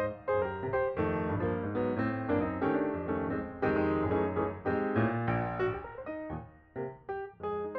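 Background piano music, a run of struck notes that each ring and die away.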